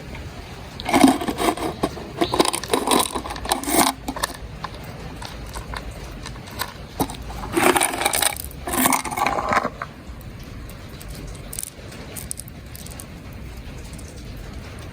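Small stones clattering and scraping in two spells, the first about a second in and the second near the middle: loose rock top dressing being handled.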